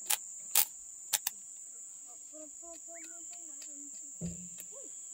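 A stick welder's arc being struck, giving four sharp crackles in the first second and a half, with the electrode sticking, which the welders put down to weak battery power. Crickets chirr steadily at a high pitch throughout, with faint voices and a low thump a little after four seconds.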